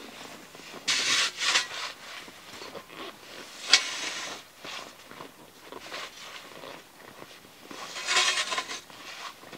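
Snow shovel scraping and scooping snow in rough bursts, about a second in and again near the end, with a single sharp knock just before the middle.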